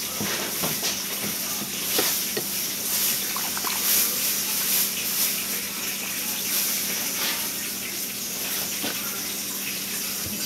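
Fizzy soda being poured from a plastic bottle into a tall glass, with a few light knocks of bottle and glass. Under it, a steady loud rushing hiss like running water and a faint steady hum fill the background.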